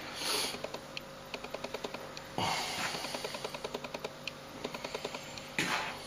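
Flour being scooped from a bowl and tipped into a plastic bowl on a kitchen scale: three short soft whooshes as the flour pours, with runs of light quick clicks in between.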